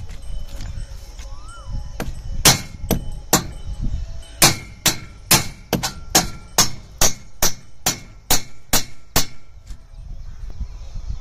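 Hand hammer striking metal on concrete: a run of about seventeen sharp, ringing blows, two or so a second, starting about two seconds in and stopping near the end, as a fastener is knocked in at the foot of a solar panel mounting stand.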